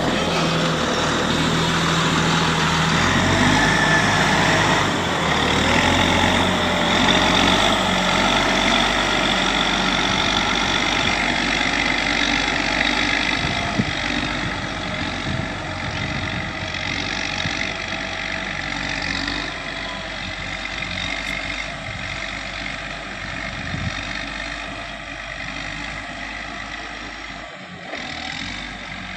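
Caterpillar 120K2 motor grader's diesel engine running steadily while the machine grades, growing quieter through the second half as it drives away.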